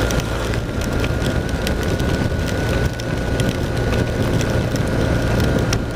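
Steady wind rush and engine drone of a BMW R1200 RT-P boxer-twin motorcycle under way in heavy rain, with rain ticking on the microphone and a faint steady whine.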